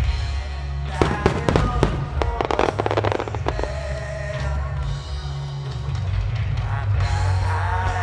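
Music plays throughout, and about a second in a rapid cluster of firework shell bursts and crackling reports breaks over it for roughly two and a half seconds.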